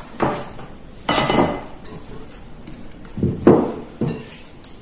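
Cookware being handled: a saucepan with a spatula in it and a glass baking dish knocked, set down and slid into place. This gives several short clunks and scrapes, one about a second in with a brief ring, and the loudest one a little past three seconds in.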